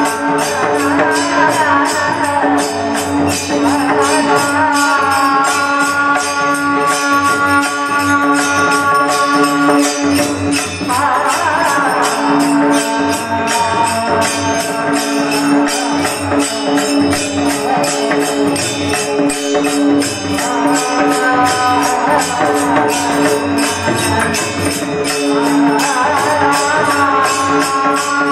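Kirtan devotional music: a sustained, wavering melody over a fast, steady percussion beat.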